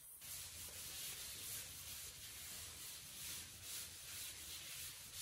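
Cloth being rubbed across a chalkboard to erase chalk, in faint repeated wiping strokes.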